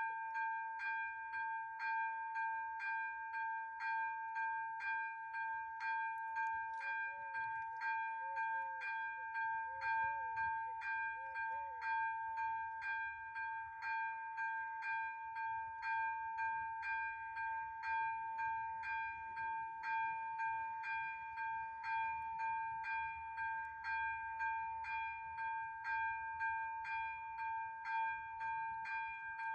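AŽD ZV-02 electronic level-crossing bell switching on and ringing steadily, a chime struck about twice a second over a held ringing tone. It means the crossing has just been activated to warn of an approaching train.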